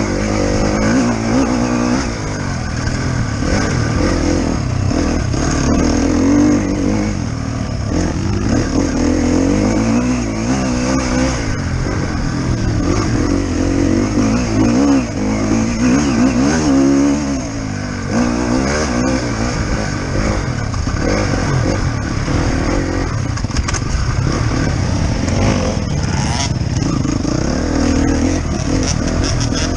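Enduro dirt bike engine, heard from the rider's helmet camera, with the revs rising and falling repeatedly as it is ridden. Occasional knocks come from the bike over the ruts.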